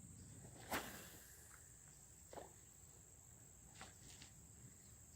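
Near quiet outdoors: a steady high-pitched insect drone, with one sharp click about a second in and a few fainter ticks later.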